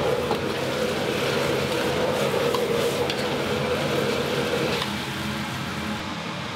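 Steady roar and hiss of a Chinese-restaurant kitchen at work, with a few light clicks; the roar drops a little about five seconds in.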